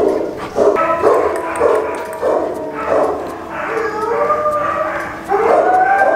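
Alaskan malamute vocalising: a run of short pitched calls that bend up and down, each about half a second apart, then one long held call that rises and levels off, starting about five seconds in.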